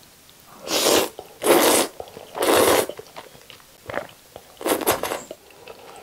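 Slurping black-bean-sauce instant noodles: three loud slurps in quick succession, then a fourth about two seconds later, with chewing sounds in between.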